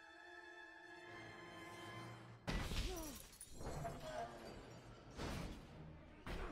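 Film soundtrack: a held orchestral string chord, then about two and a half seconds in a sudden loud crash of a car smashing with shattering glass. Further heavy impacts follow near the end.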